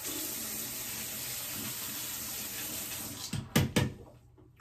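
Bathroom tap running steadily into a sink as a toothbrush head is rinsed under it. The running water stops near the end, with two sharp knocks.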